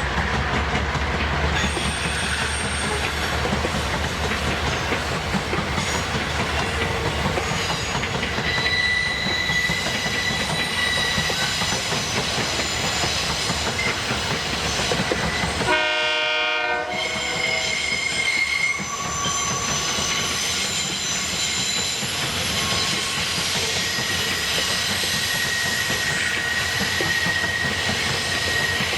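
Train passing close by, its wagons rumbling and clattering steadily over the rails, with thin high-pitched wheel squeal. About sixteen seconds in a short horn-like tone sounds for about a second.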